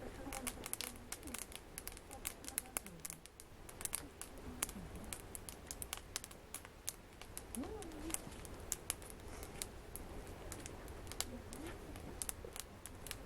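Wood fire burning in a fireplace, crackling with rapid irregular sharp pops and snaps.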